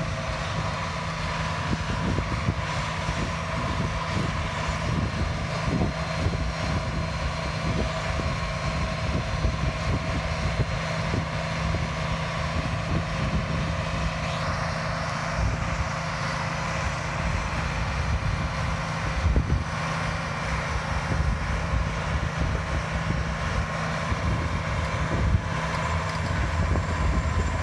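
Engines of a Fendt wheeled tractor and a John Deere tracked tractor running steadily under heavy load as they pull against each other: a deep, even diesel drone with a steady hum above it.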